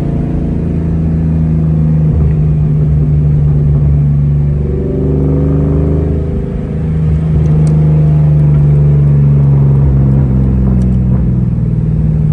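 Supercharged 4.6-litre DOHC V8 of a 2003–04 SVT Mustang Cobra, heard from inside the cabin as the car drives on the road. The low engine note is steady, eases briefly about six seconds in, then pulls again, louder.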